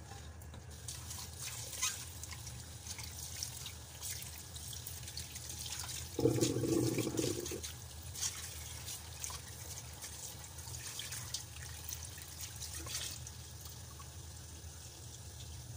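Tap water running into a stainless steel pot in a sink as hands rub and rinse softened dried sea cucumbers to loosen dirt from their skin, with irregular splashing. About six seconds in a louder, lower-pitched sound lasts about a second and a half, and the splashing eases off near the end.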